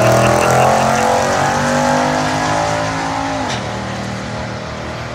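A Mercedes G-wagon and a Ford Mustang GT accelerating hard side by side down a drag strip, their engines rising in pitch through the gears. About three and a half seconds in the pitch drops sharply as they lift off at the end of the run, and the sound fades as they move away.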